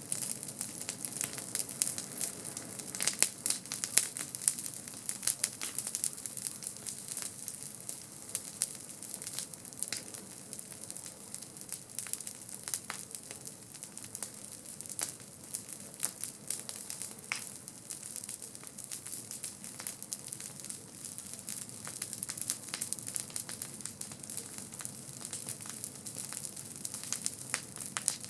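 Wood campfire burning: constant crackling with many sharp pops and snaps over a steady hiss.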